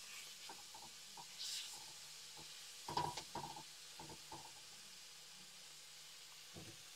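Spatula scraping and knocking in a frying pan as shelled mussels, onion and jalapeño are stir-fried, over a faint steady sizzle on lowered heat. The scrapes come in scattered strokes, loudest about three seconds in.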